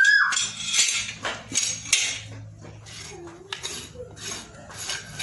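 Farrier's metal hand tools working a horse's shod hoof: a series of short scraping, clinking strokes, about two a second.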